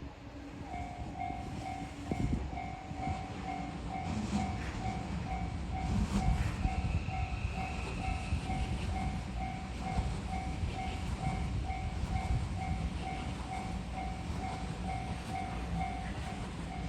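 Railway level-crossing warning bell ringing about twice a second, starting just under a second in, while a train rumbles past with a few sharp clanks.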